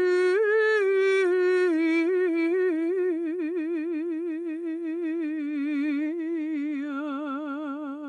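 An elderly woman's voice sings one long unaccompanied line with vibrato. It rises slightly at the start, then slowly steps down in pitch, and the vibrato grows wider toward the end.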